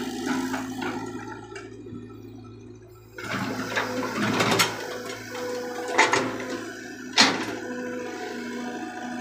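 Caterpillar E120B hydraulic excavator running as it swings its cab and boom: a steady engine hum with a held tone. It drops away for a second or two, then grows louder, with two sharp knocks about six and seven seconds in.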